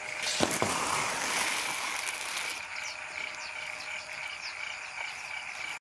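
Chorus of frogs and insects calling by the riverbank: a steady high trill, with many short, quick chirps joining it about halfway through.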